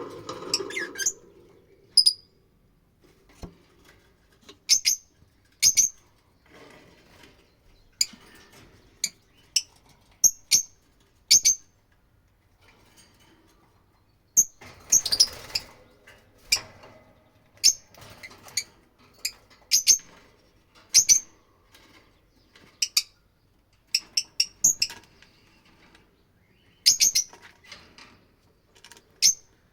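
Fischer's lovebirds giving short, sharp, high-pitched chirps, singly or in quick runs of two or three, every second or so with brief pauses between, over a faint rustle.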